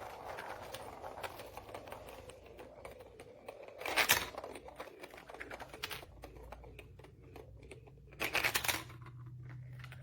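Plastic magnetic tiles and marbles clicking and clattering as they are handled, with two louder clatters about four seconds in and again about eight seconds in.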